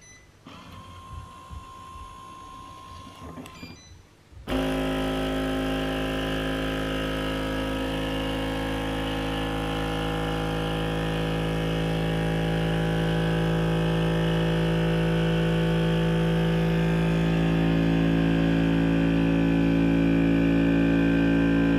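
Byzoo vacuum blender's vacuum pump switching on about four seconds in and running as a steady hum, drawing the air out of the jar before blending. A few light clicks come before it starts.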